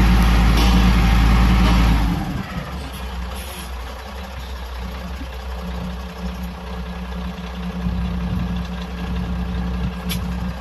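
XCMG XS223J single-drum vibratory roller's diesel engine running with a heavy, deep rumble. About two seconds in, the rumble drops away suddenly and the engine carries on at a lighter, steady idle.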